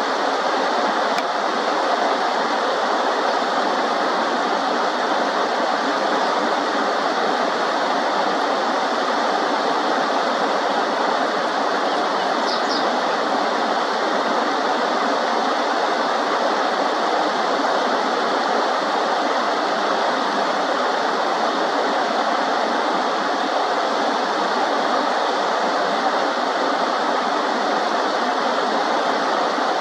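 Shallow river water running steadily, with one brief high chirp about halfway through.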